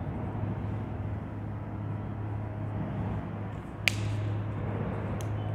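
Marker working on a whiteboard: a sharp tap about four seconds in as a dot is marked, and two lighter ticks near the end, over a steady low hum.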